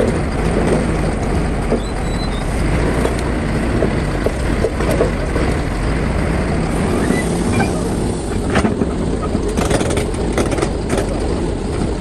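Heavy excavator engine running steadily under load, with a few sharp knocks and clatters near the end.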